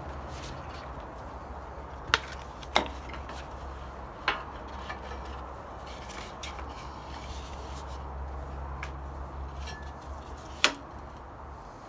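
Sanding belts being swapped on a belt grinder: the belt and the grinder's wheels and fittings are handled, giving four sharp clacks, the loudest near the end, over a low steady hum.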